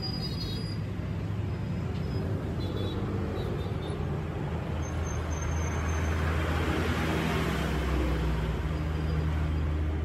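Road traffic with a steady low engine hum, swelling as a vehicle passes about six to nine seconds in.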